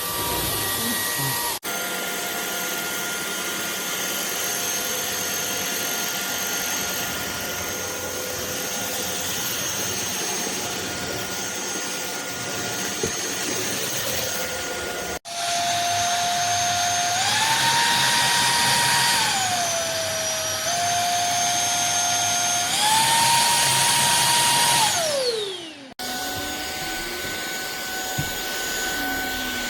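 Anyson cordless stick vacuum's motor running with a steady whine and rush of air. Past the middle it switches power levels, the whine stepping up in pitch, back down and up again. It then winds down with a falling whine as it is switched off.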